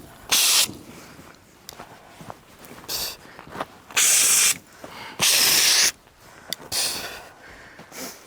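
Several short, loud bursts of hissing, about five of them, each under a second, the loudest about four seconds in, over a faint steady background.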